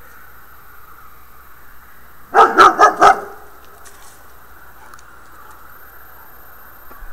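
A dog barking four times in quick succession, loud against a steady background hiss.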